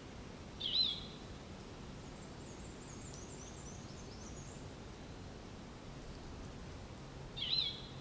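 Birdsong over a soft, steady outdoor hiss. A bird gives a short, sharp, high call twice, about a second in and again near the end, and a faint, very high twittering of quick falling notes comes in between.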